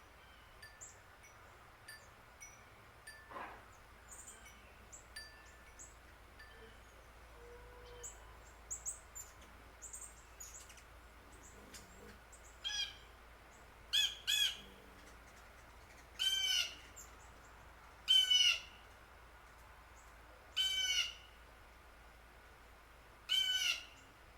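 Birds calling: scattered short, high chirps in the first half, then from about halfway on a larger bird gives seven loud calls, one roughly every two seconds.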